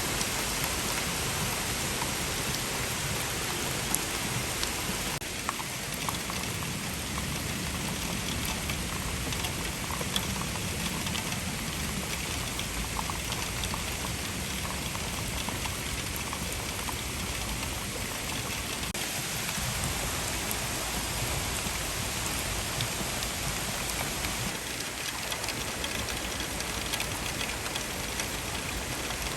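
Intense downpour of rain, falling steadily, with a dense patter of individual drops striking surfaces.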